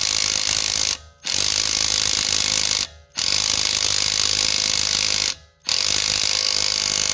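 Hart 20V cordless 3/8-inch impact wrench hammering on a lug nut torqued to 150 foot-pounds, driving through an adapter, in four bursts of one to two seconds each with short pauses between. It is struggling to break the nut loose.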